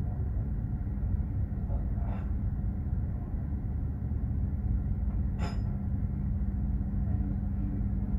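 Container ship underway: a steady low rumble of the ship's engines and hull with a constant hum, and two brief clicks, one about two seconds in and one past the middle.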